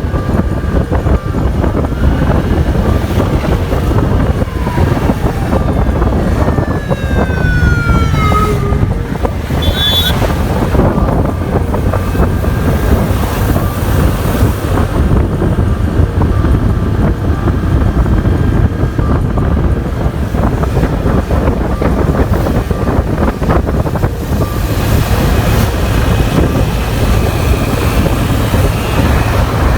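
Wind buffeting the microphone over a steady road and traffic rumble while travelling along a highway. About eight seconds in, a horn sounds with its pitch sliding down as it passes, and a short high beep follows about two seconds later.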